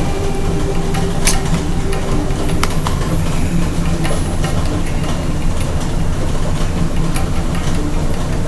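Steady low rumble of a running vehicle, with scattered sharp clicks over it.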